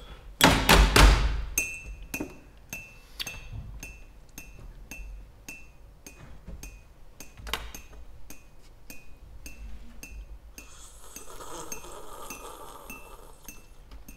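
Percussion played on office objects: a steady, quick rhythm of light clinks, each with a short high ring. A loud knock with a rattle comes about half a second in, and a longer hissy sound runs near the end.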